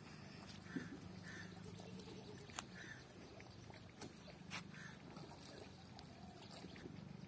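Faint outdoor ambience: a steady low hum, a short bird call repeated every second or so, and a few sharp ticks.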